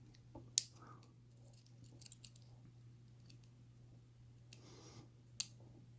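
Faint metallic clicks and light scraping of a lock pick and tension wrench working the pin tumblers of a Kryptonite padlock. A few sharp clicks are scattered through, the strongest about half a second in and near the end, with a short scrape just before the last one.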